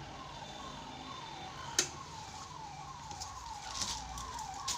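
A siren sounding in quick, repeated falling sweeps, about three a second, faint under the room sound. A single sharp click about two seconds in.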